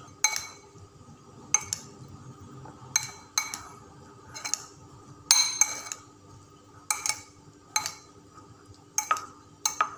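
A metal utensil clinking and scraping against a ceramic bowl while cooked rice is stirred with sushi vinegar: irregular, ringing clinks about once a second, a quick pair of them a little past the middle.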